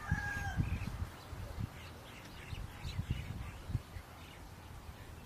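The tail of a rooster's crow, a long held note that trails off about half a second in. After it come faint, scattered bird chirps and occasional low thuds.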